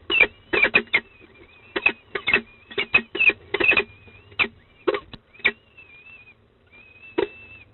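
Peregrine falcon chicks begging to be fed: clusters of short, shrill cheeps over a thin, wavering high whine, with a short lull about six seconds in.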